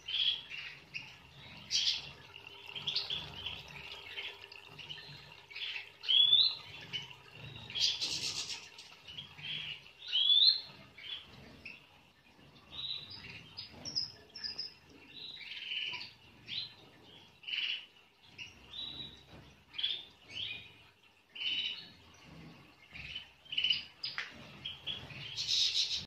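A group of Moroccan goldfinches (European goldfinch, parva race) chirping and twittering. Short calls come irregularly every second or so, some with quick upward sweeps.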